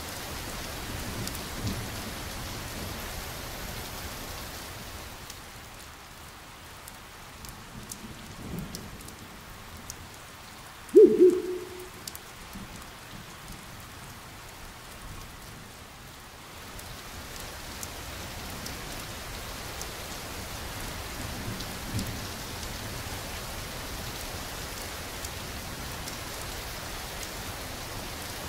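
Steady rain, thinning for a stretch in the middle, with occasional low thunder rumbles. A brief loud sound about eleven seconds in.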